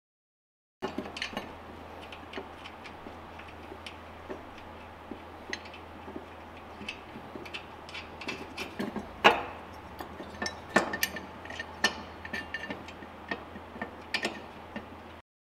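Irregular small clicks and knocks of a mower deck belt pulley being handled and worked onto its spindle, sliding over and twisting onto three mounting bolts. The sharpest knock comes a little past halfway.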